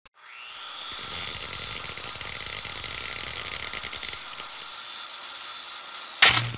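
Logo-intro sound effect of sparks: a steady crackling, sizzling hiss like a grinder throwing sparks, then a loud hit with a low boom about six seconds in.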